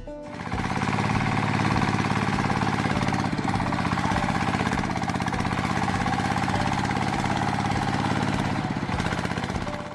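A small motor running steadily with a fast, even chug, starting about half a second in and stopping near the end.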